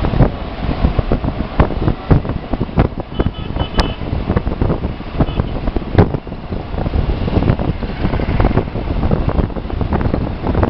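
Loud, irregular wind buffeting on a microphone held out of the window of a moving bus, over the bus's road and engine noise.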